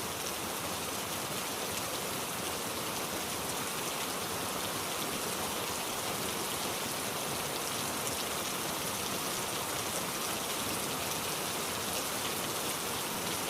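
Steady, even rain with no breaks.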